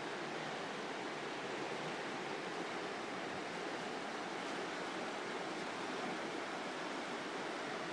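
Steady rush of fast-flowing water, swollen after heavy rain.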